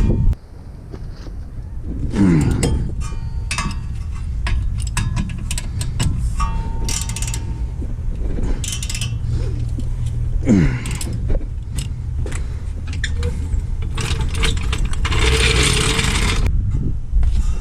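Metal car parts and hand tools clinking, scraping and knocking together during rear brake reassembly, with short ringing clinks and a low steady rumble underneath. A hiss lasting about a second and a half comes near the end.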